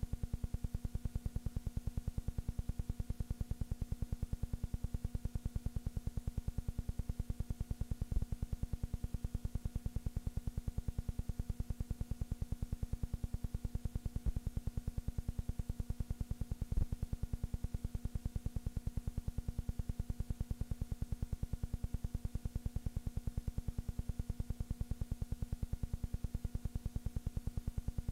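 Steady low electrical hum with a fast, even pulsing beat and faint hiss, broken by a few brief clicks; no sound from the game itself, only the noise of the old film transfer.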